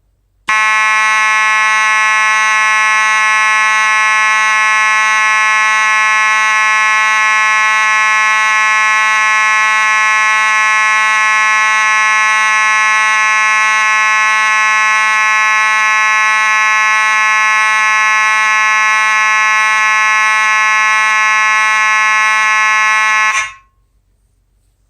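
Simplex 2901-9838 fire alarm horn sounding on continuous (uncoded) signal: one steady, loud, buzzy tone without interruption. It starts about half a second in and cuts off abruptly near the end.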